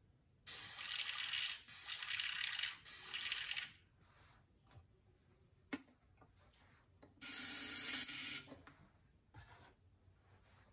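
Airbrush hissing in short bursts of spray: three of about a second each in quick succession, then one more a few seconds later.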